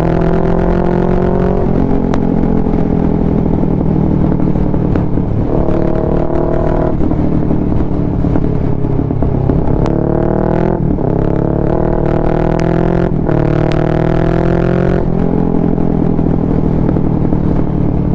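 Kawasaki Ninja 650 parallel-twin with a loud Mivv full-system exhaust, under way and pulling hard several times: the pitch rises through each burst of throttle, then drops off at a shift or a closed throttle, with steady cruising in between. A few brief sharp clicks stand out.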